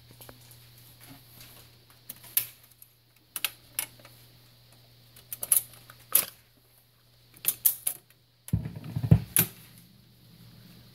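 Record changer of a 1966 Penncrest console stereo cycling to play a 45. Its mechanism gives a run of sharp clicks and clacks as it works, over a low steady hum. Near the end come a few heavy low thumps as the stylus sets down on the record.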